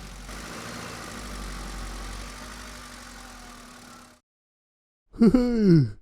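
A cartoon vehicle engine sound effect runs steadily at a low rumble, fades and cuts off about four seconds in. After a moment of silence a short, loud cartoon voice cry falls in pitch near the end.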